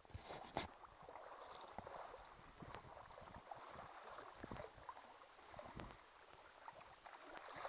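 Faint lapping and sloshing of shallow lake water, with a few soft clicks scattered through it.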